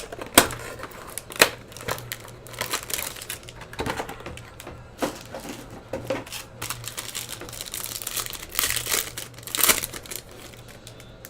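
Plastic wrapping on a sealed trading-card hobby box being torn open and crumpled: irregular crinkling and crackling with a few sharp snaps.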